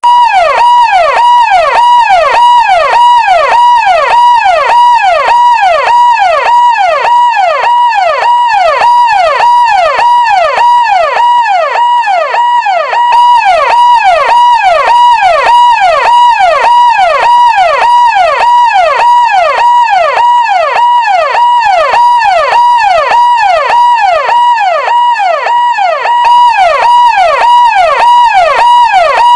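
Electronic siren-like tone repeating rapidly, about two to three times a second: each cycle is a held high note that drops sharply in pitch. It is loud and keeps the same pattern throughout.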